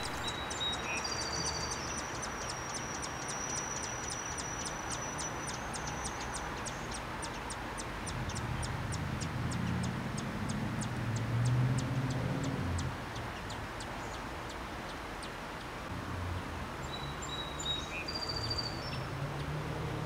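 Outdoor backyard ambience with short, high bird chirps now and then and a rapid run of high ticks, about four a second, that fades out about two-thirds of the way through. A low rumble swells and fades in the middle.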